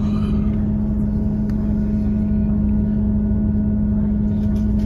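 Northern Class 158 diesel multiple unit running along the line, heard from inside the carriage: a steady drone with one strong, even low hum over a dense rumble.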